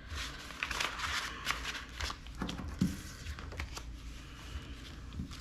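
Paper banknotes and envelopes rustling and crinkling as they are handled, with scattered light taps and clicks.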